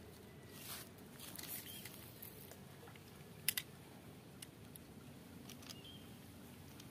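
Faint handling of a fishing rod and reel: a few soft rustles, then a sharp double click about three and a half seconds in, followed by scattered lighter clicks.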